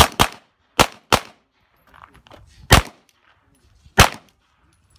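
Glock 34 9mm pistol firing six shots in rapid competition shooting: two quick pairs in the first second, then two single shots about a second and a half apart.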